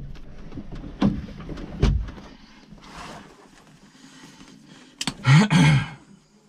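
Knocks and clatter inside a stationary rally car's cabin as the co-driver gets out through the passenger door, with sharp knocks about one and two seconds in, then a knock and a short voice sound with a wavering pitch about five seconds in.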